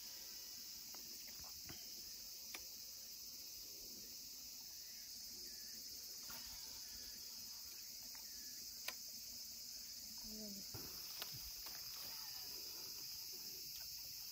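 A steady, high-pitched chorus of insects chirring in the grass, with a few faint clicks.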